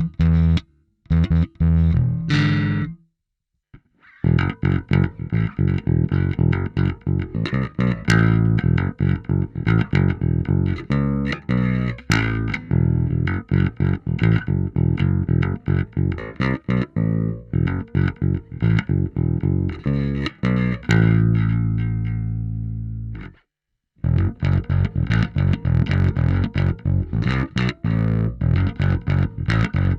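Electric bass, a 1980s Ibanez Jazz bass, played through a tube-based Bass Amuser overdrive pedal into an Ampeg SVT amp profile: busy runs of plucked notes. The playing stops briefly about three seconds in. Two-thirds of the way through, a long note is left to ring out, followed by another brief pause before the notes resume.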